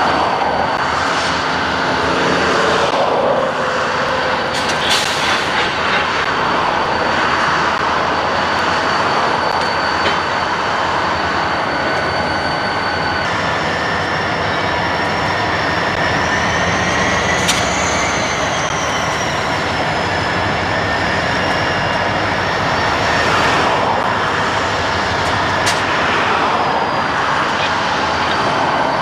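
Diesel locomotives running and moving slowly through a rail yard: a steady engine rumble, with a thin high tone that rises and falls about halfway through.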